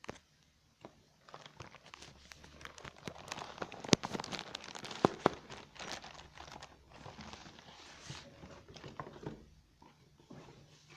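Packaging of a new instant water heater being unwrapped by hand: irregular crinkling and rustling with many sharp clicks and snaps, the two loudest about four and five seconds in.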